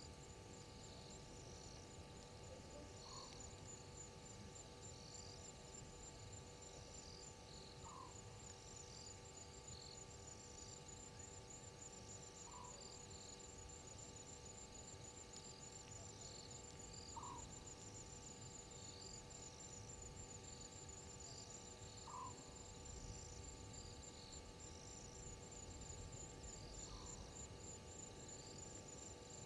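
Faint night chorus of insects: a steady, rapid high-pitched trill with irregular chirps over it. A short call repeats about every five seconds, six times in all, over a faint steady hum.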